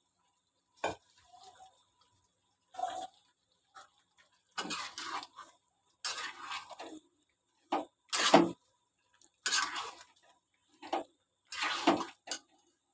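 A metal ladle stirring thick chicken curry in a steel kadai: a series of short wet scrapes and knocks against the pan, about one a second.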